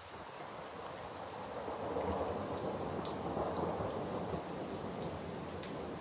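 Steady summer rain with scattered drops ticking close by, and a rumble of thunder that swells about two seconds in and rolls on.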